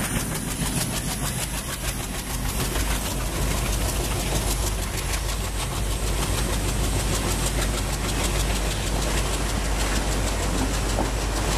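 Twin ALCO diesel locomotives running hard as they accelerate away, smoking heavily under power, mixed with passenger coaches rolling past with a fast, steady rattle of wheels on the track.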